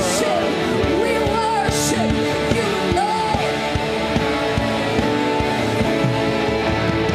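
Live worship music: a band with long held keyboard chords, guitar and drums, and a voice singing sliding, wavering lines over it.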